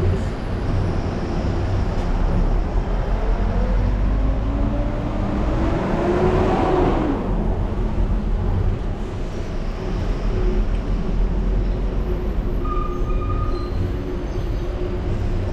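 Steady low rumble of a bicycle ride with wind on the microphone, and a motor vehicle passing about six seconds in, its engine pitch rising and then falling as it goes by.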